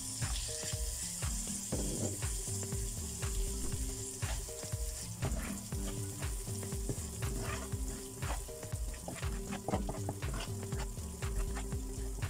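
Chilli paste sizzling as it fries in a stainless steel wok, with a metal spatula repeatedly scraping and knocking against the pan while stirring. Background music with a stepping bass line plays underneath.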